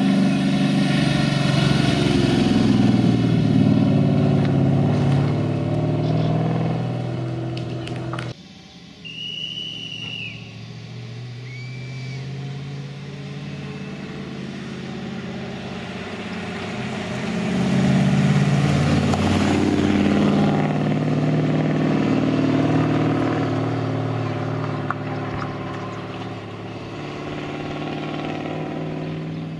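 Triumph TR7 V8 rally car's Rover V8 engine revving hard as it passes at speed, its pitch rising and falling. The sound cuts off abruptly about eight seconds in to a quieter stretch, then builds to a second loud pass around eighteen to twenty seconds before fading as the car drives away.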